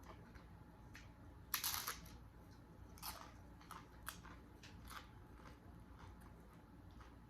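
Bite into a loaded tortilla chip: a loud crunch about one and a half seconds in, followed by a few smaller crunches of chewing.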